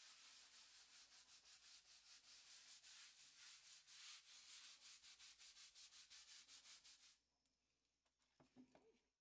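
Small hand scrub brush scrubbing fast over a damp, algae-covered rendered wall, a faint scratchy rasp at about five strokes a second. The scrubbing stops about seven seconds in.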